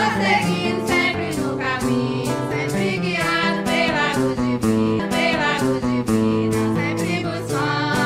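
Sung prayer hymn: a voice holding wavering notes over sustained instrumental chords, with a steady percussive beat about two to three strokes a second.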